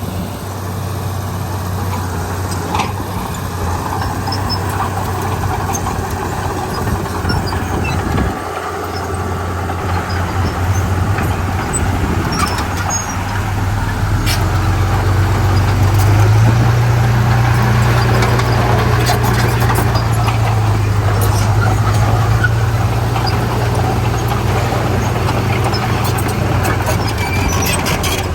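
Heavy diesel engine of earthmoving equipment (a bulldozer and dump trucks) running steadily with scattered clanks. About halfway through it revs up, gets louder and holds at the higher speed.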